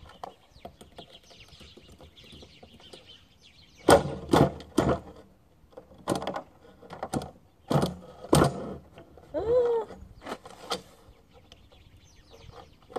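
A run of sharp clacks and knocks from hands working on an HPI Savage nitro RC truck, its engine not running, most of them packed into a few seconds in the middle, with a short squeak rising and falling in pitch just after. Faint birdsong sits underneath.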